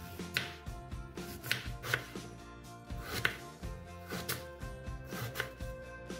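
Kitchen knife slicing a peeled raw potato on a wooden cutting board: a sharp knock as the blade meets the board with each slice, about once a second. Soft background music runs underneath.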